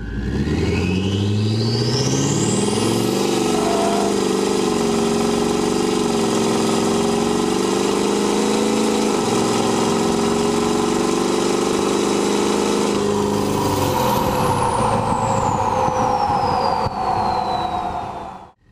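Ford 6.7L Power Stroke V8 turbodiesel with an H&S single-turbo kit and 5-inch exhaust with muffler, accelerating at full throttle. The engine note climbs over the first few seconds and then holds, while a high turbo whistle rises steeply as the turbo spools. About 13 seconds in the throttle comes off, and the whistle falls away as the turbo spools down.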